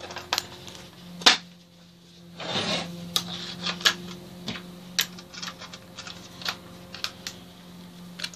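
Irregular sharp metallic clicks and clinks, a dozen or so, as pieces of 8 mm threaded rod are fitted into the wheelbarrow wheel, with a short rubbing scrape about two and a half seconds in. A steady low hum sits underneath.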